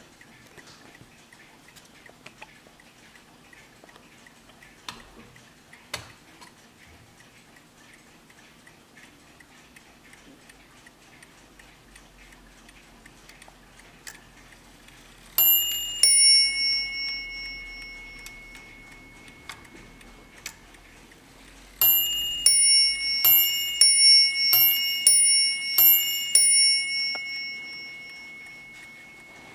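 Warmink Dutch pillar mantel clock ticking steadily, then striking its two bells: first a single two-note pair, then about six seconds later a longer run of strikes alternating between the two bells, each ringing on and fading slowly.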